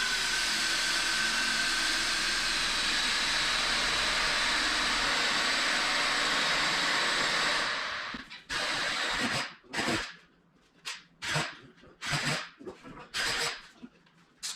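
Power drill running a 2 1/8-inch hole saw through a door, cutting from the second side to finish the hole. It runs steadily for about eight seconds, then stops and is followed by a string of short knocks and handling sounds.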